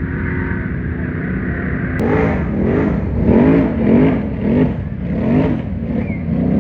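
Can-Am Outlander ATV's V-twin engine running steadily, then revved hard about six times in quick succession, each rev rising and falling in pitch, after a sharp click about two seconds in; it settles back to a steady run near the end.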